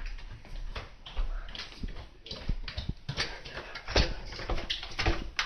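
Footsteps going down a staircase: a string of irregular knocks and clicks, a few each second.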